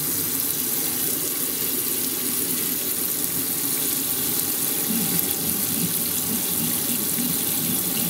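Camper sink faucet running steadily, water flushing through the lines to push out the pink RV antifreeze while de-winterizing.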